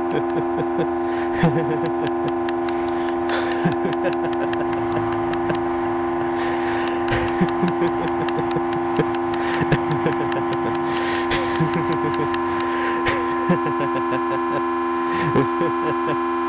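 A steady drone of several held tones sounding together like a horn chord, with scattered clicks and crackles throughout.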